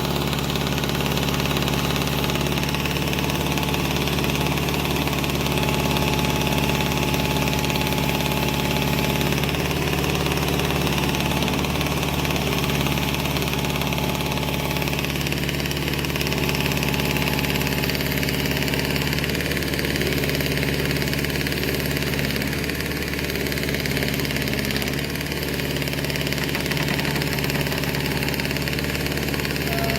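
John Deere 410 backhoe loader's engine idling steadily, with a slight shift in tone about halfway through.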